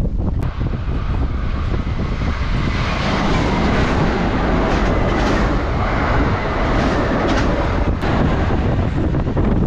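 A Kintetsu Osaka Line train running past on the rails, its noise building over a couple of seconds, holding, then easing near the end. Strong gusty wind buffets the microphone throughout.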